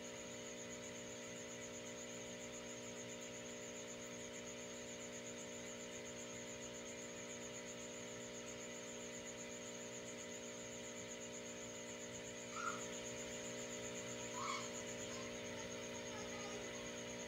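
A steady electrical hum made of several fixed tones, with a thin high whine above it. Two short faint squeaks sound near the end, about two seconds apart.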